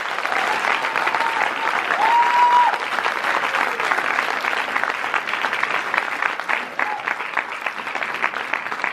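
Audience applauding steadily, a dense clapping.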